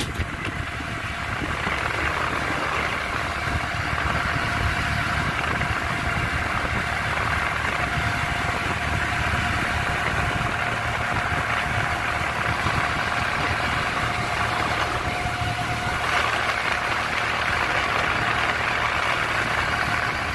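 Steady road noise of a moving vehicle: a low engine rumble under a hiss of tyres and passing air. A faint steady whine runs through the middle stretch.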